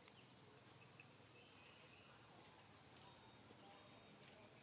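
Faint, steady high-pitched insect chorus, otherwise near silence.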